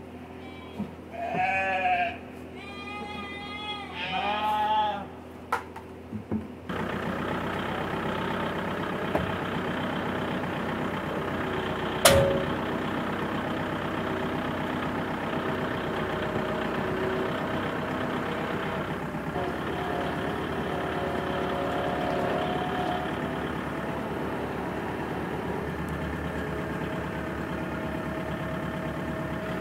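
Lambs bleating, about three calls in the first few seconds. Then a compact tractor's engine running steadily as it drives, with one sharp knock about twelve seconds in.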